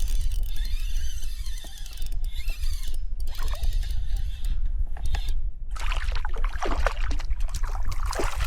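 Steady wind rumble on the microphone with water splashing and sloshing around a fishing kayak, the splashing getting busier over the last few seconds.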